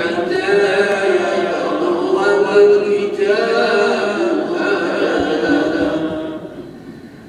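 A man reciting the Quran in Arabic in a melodic chant, holding long, drawn-out notes that glide in pitch, the phrase fading away about six seconds in.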